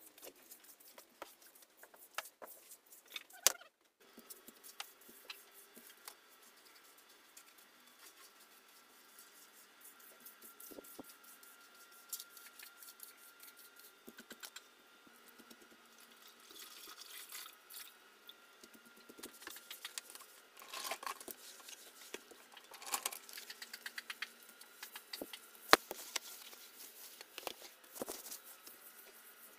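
Broom sweeping a floor: scattered swishes and scrapes with light knocks, busier in the second half, and a few sharp clicks, the loudest about three seconds in and near the end.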